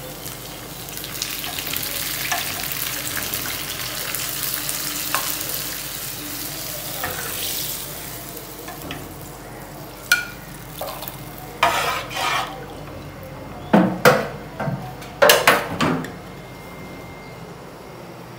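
Onions and garlic sizzling in hot oil in a pan as they are stirred, the sizzle loudest in the first half. Later come several sharp clanks of a utensil against the pan.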